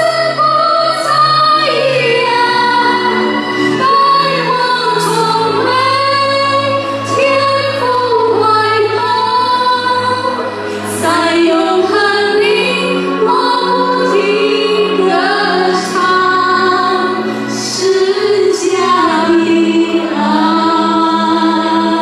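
Two women singing a Mandarin worship song in unison over instrumental accompaniment with long held bass notes.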